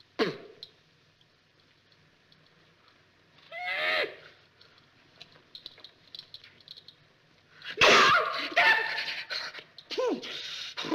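A man's wordless comic yelps and cries in short, separate outbursts with pitch swooping up and down. The loudest is a harsh, noisy shriek about eight seconds in.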